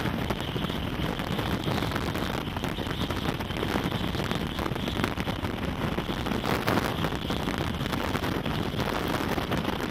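Strong storm wind and rain buffeting a vehicle, a steady dense rush with the wind blasting the microphone. These are the winds of the storm around an approaching rain-wrapped tornado.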